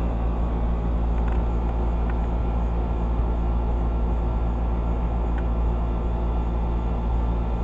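Carrier 38BRC central air-conditioner condensing unit running steadily: a constant low compressor hum with the whir of the condenser fan. A few faint ticks sound over it.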